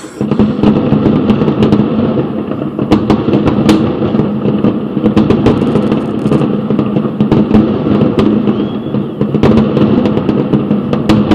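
Wind buffeting the microphone: a loud, steady rumble, with scattered sharp cracks throughout.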